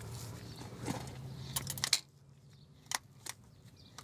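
Sharp metallic clicks from a lever-action grease gun and its coupler being worked on a truck driveshaft U-joint's grease fitting: a quick run of clicks just before halfway, then single clicks after. A low steady hum underneath stops about halfway.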